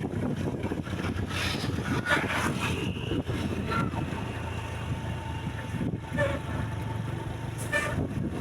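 Steady low rumble of road traffic and vehicle engines, with wind on the microphone.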